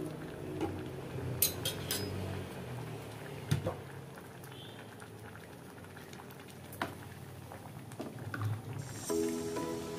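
A pot of seafood sinigang soup boiling on a gas burner, with a few light clinks of a utensil against the pot. Background music comes back in near the end.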